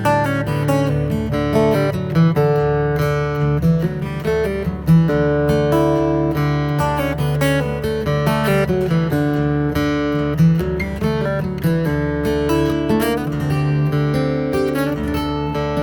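Acoustic guitar music, plucked and strummed notes in a steady run with a sustained bass.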